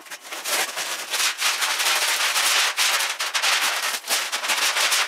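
Fiberglass ceiling insulation and its white sheeting being ripped down from the rafters, giving a dense, continuous crackling and tearing.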